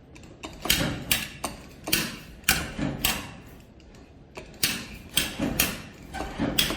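Claw machine being worked: an irregular run of sharp mechanical clicks and clacks, roughly two a second.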